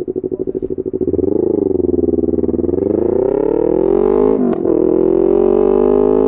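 2020 Yamaha MT-03's 321 cc parallel-twin engine through an SC-Project full titanium exhaust, loud. It pulses unevenly at idle for about a second, revs up and down briefly, then climbs steadily as the bike accelerates. About four and a half seconds in there is a short break and a dip in pitch, a gear change, after which it climbs again.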